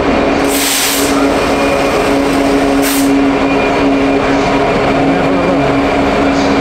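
Train running steadily with a constant hum, with two short hisses, one about half a second in and a briefer one about three seconds in.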